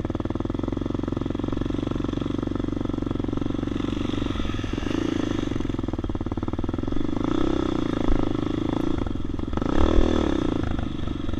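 Honda XR 650R's big single-cylinder four-stroke engine running at low speed on sand. The revs rise and fall a few times, most sharply about ten seconds in.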